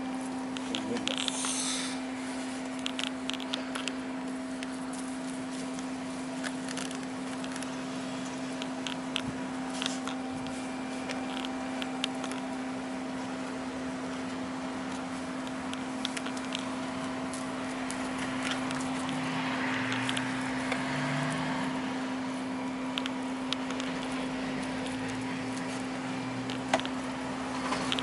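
A steady electrical or mechanical hum, with faint scattered rustles and small taps from gloved hands wrapping resin-soaked mesh tape around a stainless steel pipe.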